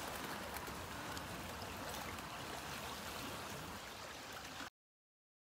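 Steady rush of a fast-flowing river, which cuts off abruptly near the end.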